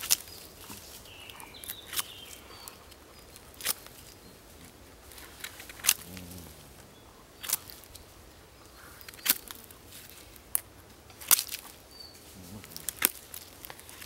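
Fixed-blade knife cutting into the end of a wooden stick held on a log: about ten short, sharp cuts, one every one to two seconds.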